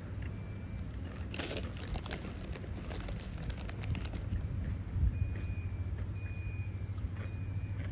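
Steady low hum of traffic or an idling vehicle, with a vehicle's reversing alarm beeping evenly from about halfway through. A short rustling burst comes about a second and a half in.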